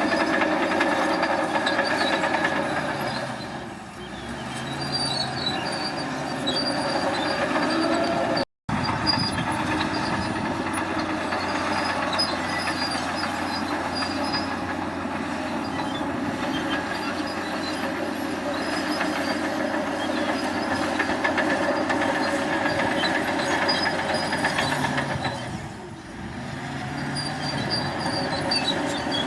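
Crawler bulldozer working, its engine running under steel tracks that clank and squeal. The sound breaks off for an instant about a third of the way in, then carries on.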